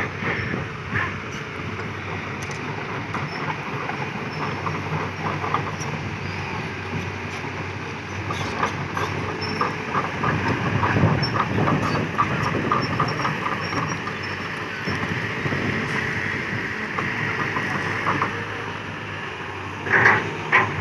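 Kobelco SK200-8 excavator travelling on its steel crawler tracks: the Hino four-cylinder diesel runs steadily under a continuous clanking of the track links and rollers, with a squeak from the undercarriage later on.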